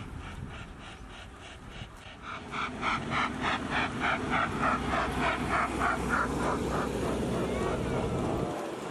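A bird calling a rapid run of harsh, evenly spaced notes, about four a second, swelling loud a few seconds in and fading out near the end.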